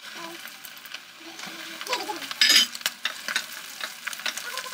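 Flour-coated chicken drumsticks frying in hot oil: crackling and sizzling that grows denser about one and a half seconds in, with a sudden loud burst of sizzle around two and a half seconds as the raw pieces go into the oil.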